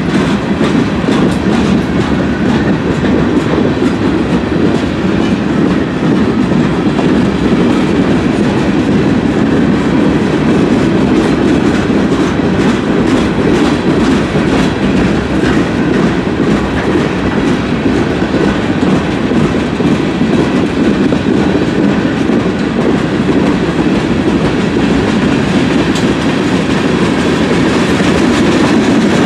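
Freight cars of a CSX manifest train rolling past close by: a steady, loud rumble of steel wheels on the rails, with faint repeated clicks.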